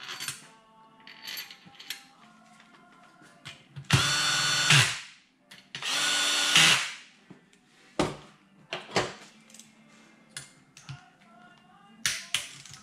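Cordless drill/driver running twice, about a second each time, as it spins screws into an aluminium Ducati engine crankcase. Sharp metallic clicks and clinks of hand tools and parts come between the runs, with a quick cluster of clicks near the end.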